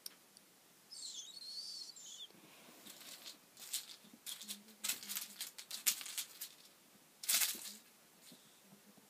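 Kitten playing on a bed: paws scrambling and pouncing on the sheet, with light taps and clicks of its small toy and sheet rustling, loudest in a longer rustle about seven seconds in.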